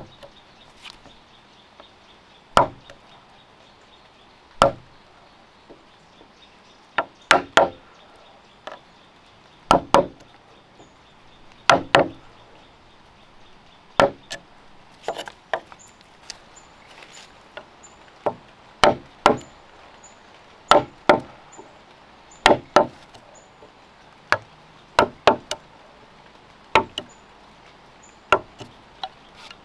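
Hand tools cutting a notch into a log: sharp, irregular knocks of tool blows into wood, about one every second or two, some in quick pairs or threes.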